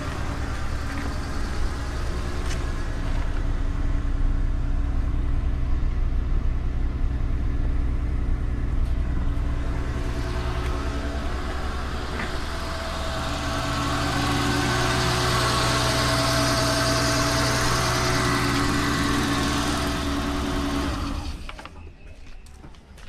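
BMW inline-six (M50/M52/S52 family) running on freshly installed and balanced individual throttle bodies, idling steadily. The engine sound drops away sharply near the end.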